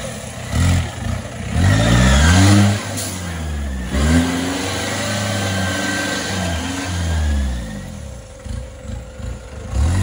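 Off-road 4x4 jeep's engine revving up and down repeatedly under load as it crawls over a steep dirt obstacle, its pitch rising and falling several times and easing off near the end.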